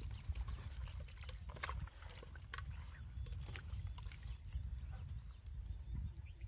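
Hands squishing and turning raw chicken pieces in a steel pot of water as the meat is washed, with wet squelches and a few sharp clicks of meat against the metal, over a low steady rumble.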